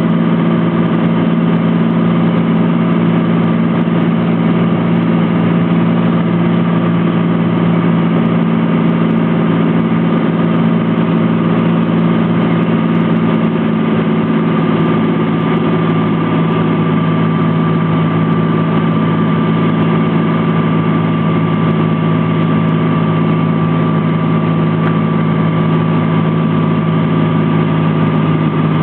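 Cessna T182T Skylane's turbocharged six-cylinder Lycoming engine and propeller running steadily in a constant drone, its tone shifting slightly about halfway through.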